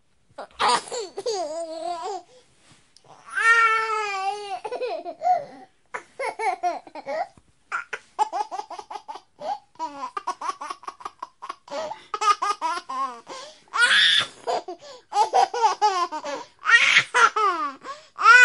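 A baby laughing and babbling in short, high-pitched bursts with brief pauses between them.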